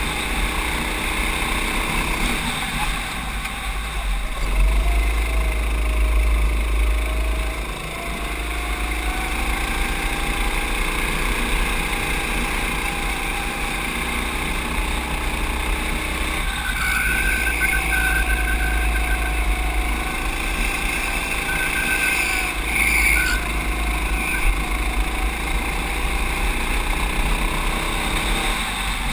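Racing kart engine heard onboard at speed, its note rising and falling as the kart brakes and accelerates through corners, with wind rumbling on the microphone. A higher whine joins for several seconds around the middle.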